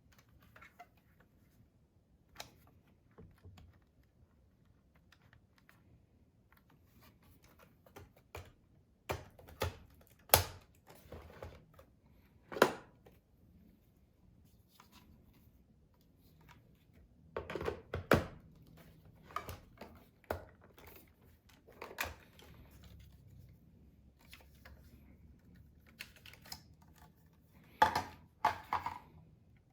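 Irregular sharp clicks, taps and knocks of objects being handled, scattered through the stretch with a few louder ones, about ten and twelve seconds in and near the end.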